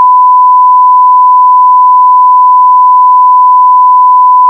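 A steady electronic test tone: one unbroken beep at a single fixed pitch, very loud, that cuts off abruptly at the end. It is typical of a line-up reference tone placed at the head of a recording.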